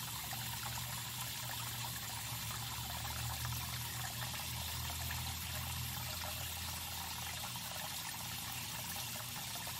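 Water trickling steadily in a small backyard pond, with a low steady hum underneath.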